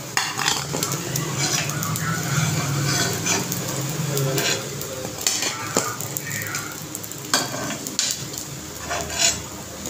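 Sabudana and potato balls sizzling in hot ghee in an aluminium kadhai, with a perforated steel skimmer scraping and clinking against the pan again and again as the balls are scooped out.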